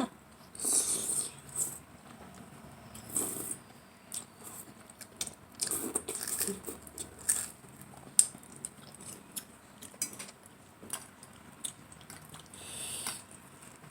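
Close-miked eating of spaghetti: irregular wet chewing and slurping noises, with scattered sharp clicks like a fork against a plate.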